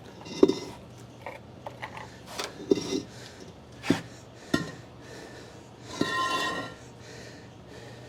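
Metal parts and hand tools clinking and knocking as they are handled and set down, with a longer ringing metal scrape about six seconds in.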